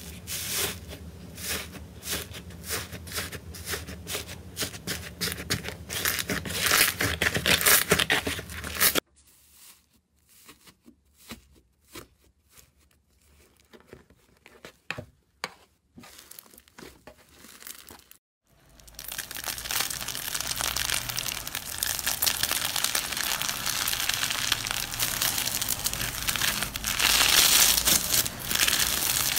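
Hands pressing slime: a purple iceberg slime's dried crust crackles with dense, fast clicks. About nine seconds in it turns to a much quieter stretch of scattered soft pops as a green slime is squeezed. From about two-thirds through, a crunchy slime being folded gives a loud, steady crunching crackle.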